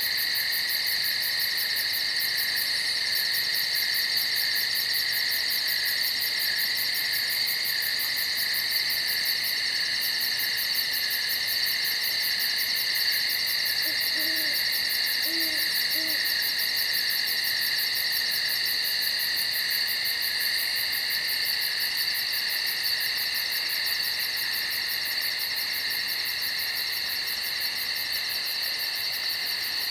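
Steady night chorus of insects: a high-pitched trilling with a fast, even pulse. An owl hoots faintly three times, low, about halfway through.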